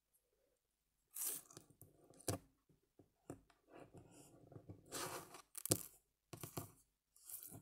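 Close-up handling of sewing materials, thread and felt: a run of short rustling, rasping scrapes with a couple of sharp clicks.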